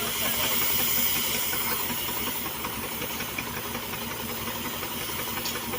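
Steady hissing roar of a gas torch at a rail weld, with a fine crackle running through it, a little louder in the first couple of seconds.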